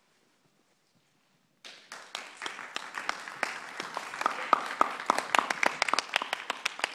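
Audience applauding, starting suddenly about one and a half seconds in, with individual hand claps standing out in a dense irregular patter.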